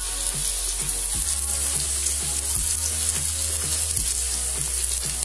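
Chopped onions sizzling steadily as they fry in hot oil in a kadai, with background music underneath.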